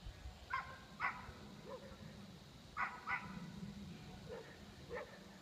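Dog barking: about half a dozen short, high barks, some in quick pairs, heard faintly.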